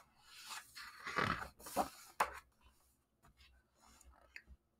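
A picture-book page being turned by hand: paper rustling and sliding for about two seconds, with a short tap near the end of the turn.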